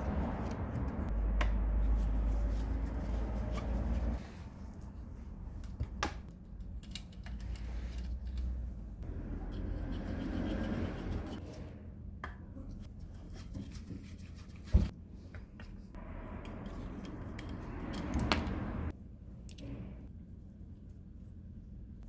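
Hands working on metal tool parts at a bench: scraping and rustling with scattered light clicks, and one sharp knock a little past the middle.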